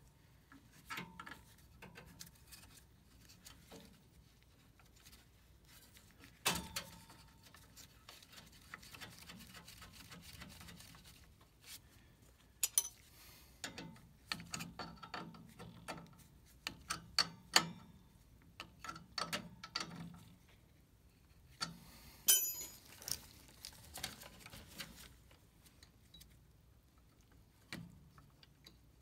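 Scattered small clicks, taps and light metal clatter from hand work on a furnace gas valve's fittings, pilot tubing and wire connector, with light rustling between them. Several sharper metallic clicks stand out.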